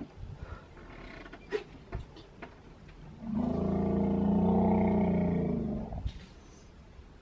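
African elephant giving a loud, steady roar lasting about three seconds, starting about three seconds in, with a few faint clicks before it.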